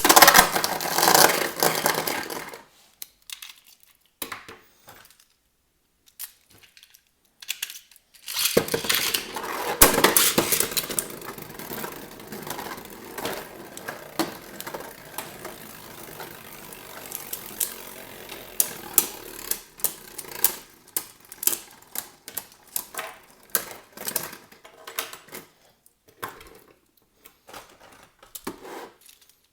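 Beyblade Burst spinning tops clashing in a plastic stadium: clattering at first, a quiet gap, then a sudden new start about eight seconds in followed by a long run of sharp plastic-and-metal clicks and knocks that thins out toward the end.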